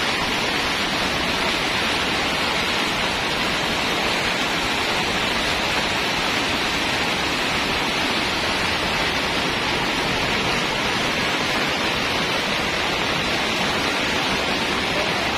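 Steady, unbroken rush of water, loud and even, with no breaks.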